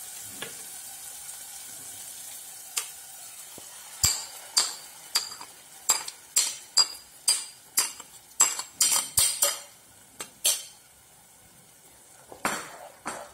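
Tomato and onion paste sizzling faintly in oil in a saucepan, then a run of sharp clinks and taps, about two a second for several seconds, as the rest of the paste is scraped from a bowl into the pan.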